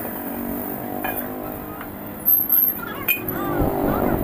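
A motor vehicle engine running, growing louder near the end, with a few sharp metal clinks of truck steering-knuckle parts being handled about two seconds in.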